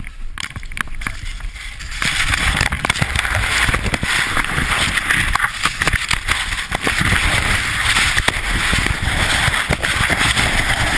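Skis hissing over snow with wind buffeting a helmet camera's microphone, a steady rushing noise with scattered knocks that gets much louder about two seconds in.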